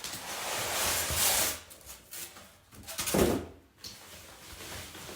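Cardboard shipping box of a flat-pack table being handled and pulled open: a long scraping rustle for the first second and a half, then a single bump about three seconds in.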